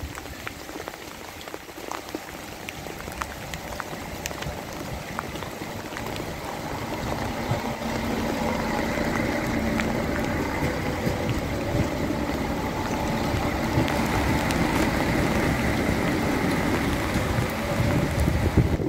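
Rain falling, joined by a regional passenger train running past on the next track: its noise builds up from about a third of the way in and holds until near the end, with a steady low hum and a faint high whine.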